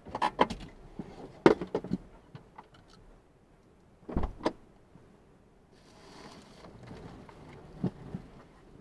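Clicks and knocks from inside a car as it is parked and its occupant handles the controls and door: a cluster of sharp clicks early, a heavier thump with a second click about four seconds in, and two more clicks near the end.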